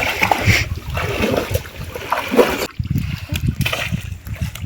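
Irregular splashing and sloshing of river water as a fishing net is dragged through it by people wading.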